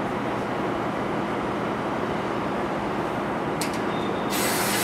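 Steady drone of a ferry's engines and onboard machinery heard from the deck, with a constant low hum. Near the end comes a short burst of hiss.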